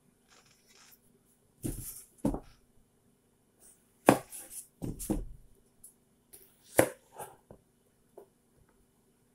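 White plastic cutting board knocked down on the table, then a chef's knife cutting the end off a zucchini, chopping down onto the board in several sharp knocks, the loudest about four seconds in and again near seven seconds.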